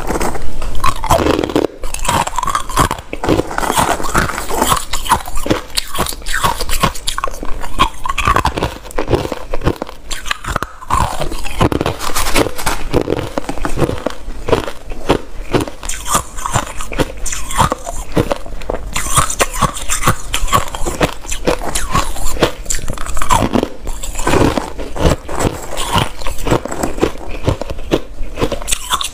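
Chunks of hard, opaque white crushed ice being bitten and chewed close to a clip-on microphone: a steady run of loud, crisp crunches.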